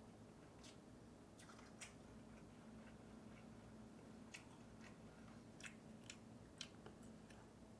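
Faint chewing of instant noodles: soft, irregular mouth clicks, about a dozen, over a quiet steady hum.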